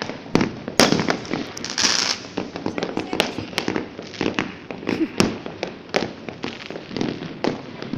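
Fireworks and firecrackers going off all around: a rapid, irregular series of bangs and pops, with a dense crackling burst about two seconds in.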